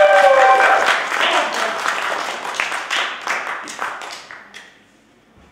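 Audience applause, many hands clapping, with a voice calling out over it at the start; the clapping thins out and dies away about four and a half seconds in.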